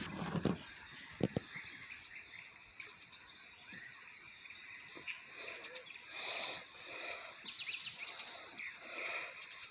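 Songbirds singing and chirping, with many short, high notes and quick down-slurred calls repeating throughout. A couple of dull low knocks come in the first second and a half.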